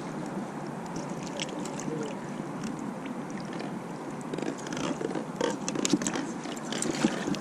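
Close handling noise with irregular scraping and many small clicks, busier in the second half, as a just-landed catfish is handled and unhooked.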